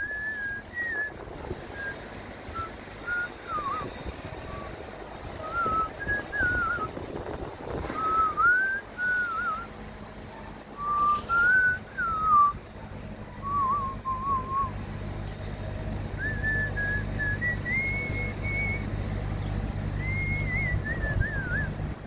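A person whistling a wandering tune in short phrases, over a low steady engine hum that grows louder in the second half.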